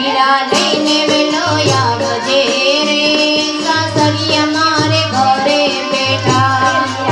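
Garba folk song: singing over a steady, rhythmic percussion beat.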